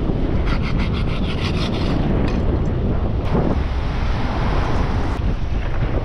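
A large serrated knife sawing back and forth through bait against a flat rock: a quick run of about ten rasping strokes, starting about half a second in. Strong wind buffets the microphone and surf washes throughout.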